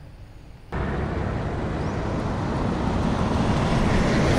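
Steady rushing noise of road traffic, heaviest in the low end, starting abruptly about a second in and slowly growing louder.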